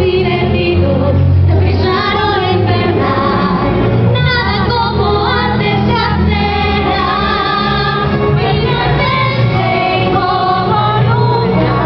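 A woman singing a song into a microphone over loud backing music played through the hall's sound system.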